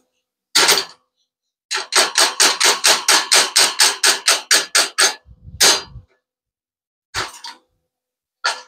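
Hammer striking metal: one blow, then a quick even run of about sixteen blows at roughly four a second, then three more single blows, each with a short metallic ring.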